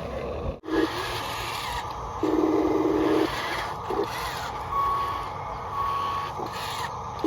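RC construction vehicle's electronic reversing beeper sounding two short high beeps about a second apart, over the steady whir of its running motors and a lower buzzing tone that switches on and off.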